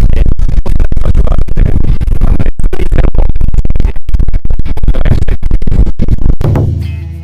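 Loud electronic music with DJ-style record scratching over a fast, dense beat. It fades out near the end, leaving a low, steady engine hum.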